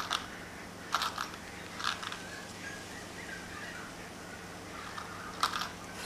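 Small metal cooler-mounting standoffs clicking as they are handled and set down on a wooden table: a few scattered sharp clicks with a quiet stretch in the middle.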